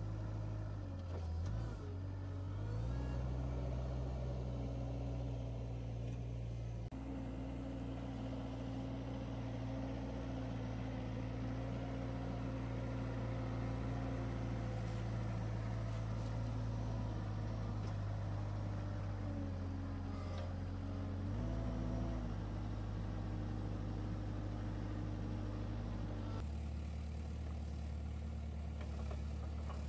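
Engine of a truck-mounted forklift running steadily while it moves and sets down loads, its pitch stepping up and down a few times.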